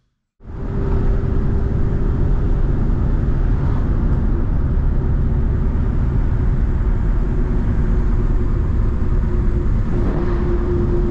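Cabin noise inside a Tata Winger minivan on the move: steady engine and road rumble with a held engine drone that shifts slightly in pitch near the end.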